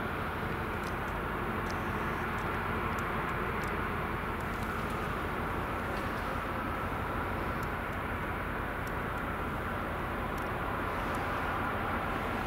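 Steady machinery rumble and hum from a large Stena Line ferry lying at its berth, with a few faint high ticks over it.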